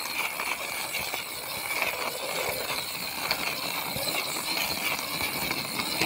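Faint crunching and ticking of a plastic toy car's wheels on dirt and gravel, over a steady high-pitched outdoor hum.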